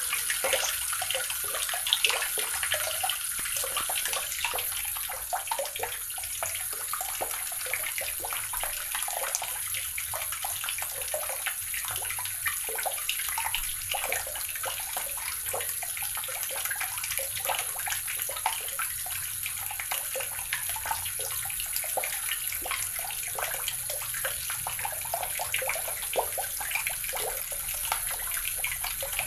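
Water running steadily from a tap and splashing into a basin below, with a continuous bubbly splashing.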